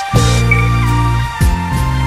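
Programme theme music with sustained notes over a steady bass line, and a drum hit about one and a half seconds in.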